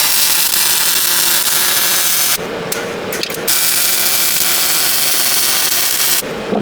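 Electric arc welding on steel sheet: the arc crackles and hisses in two long runs of a couple of seconds each, with two brief strikes between them. In the gaps a steady hum from the welder is heard.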